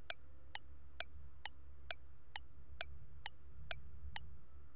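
Countdown clock-tick sound effect: short, slightly ringing ticks about twice a second, marking the answer time for a quiz question. The ticks stop shortly before the end.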